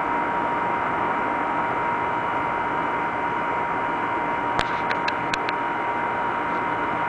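Steady hum and hiss with a thin, steady high tone running through it. A handful of sharp clicks come close together about two-thirds of the way in.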